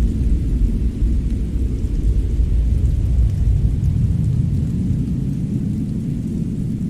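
Fireplace fire burning with a steady low rumble and a few faint crackles.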